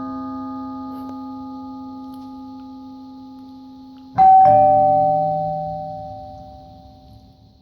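Ding-dong doorbell chime: a higher note and then a lower one struck a moment apart about four seconds in, ringing out slowly. Before it, the ring of an earlier chime is fading away.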